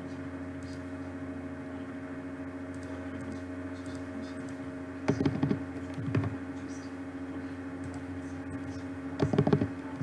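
Keys tapped on a computer keyboard in short spells, about five seconds in and again near the end, as values are typed into the software's fields. Underneath runs a steady low hum with several fixed tones.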